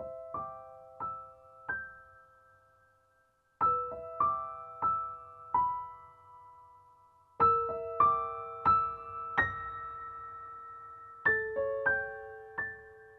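Background music: a soft solo piano playing slow phrases of four struck notes, each note ringing on and fading, with a new phrase starting every few seconds.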